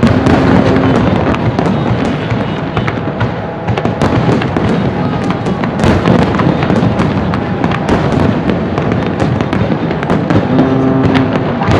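Aerial fireworks display: a continuous barrage of overlapping shell bursts, bangs and crackling.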